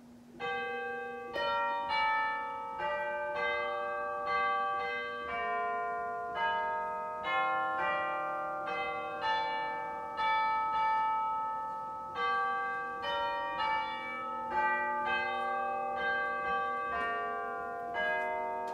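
Bells playing a melody. The notes are struck about once a second, each left to ring on as the next sounds, starting about half a second in.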